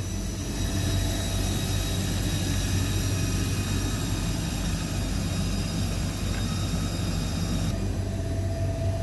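Winnebago Journey motorhome's engine idling while the air suspension bags let their air out in a steady hiss as the Power Gear leveling system begins its auto cycle. The hiss stops near the end and a steady hum takes over, the leveling system's hydraulic pump starting to run.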